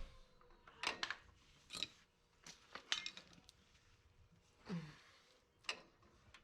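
Several sharp metallic clinks and scrapes of hand tools working on drum brake springs and hardware, coming irregularly.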